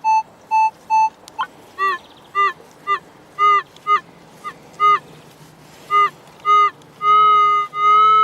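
Metal detector signalling a buried target as the coil is swept over it: a run of short, evenly spaced beeps about four a second, then from about a second and a half in, lower beeps that bend in pitch at each pass, merging near the end into one continuous tone.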